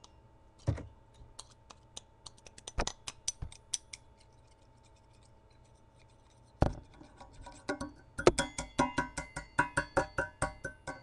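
Fingerboard ground and tapped along an unwaxed rail: scattered clicks, a pause, then from a bit past halfway a fast run of loud scraping clicks, about five a second. The loud, rough contact is the sign of a rail that has not been waxed.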